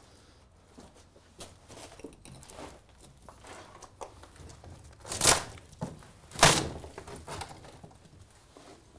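Footsteps crunching over rubble, broken boards and scattered paper, with small knocks and crinkles as debris shifts underfoot. Two louder knocks a little past halfway and about a second later, as the walker climbs up into a broken-out wall opening.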